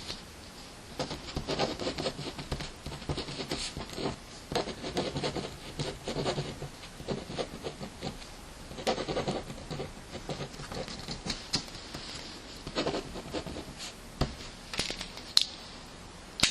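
Pen writing on paper: runs of scratchy strokes broken by short pauses, with a few sharp taps near the end.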